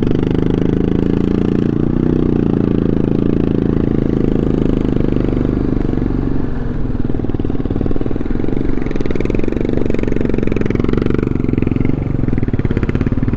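Motorcycle engine running steadily under load as it climbs a steep, rough off-road track.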